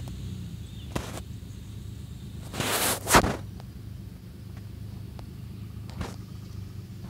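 Outdoor background with a steady low hum, a couple of faint clicks, and a short burst of noise about three seconds in that is the loudest sound.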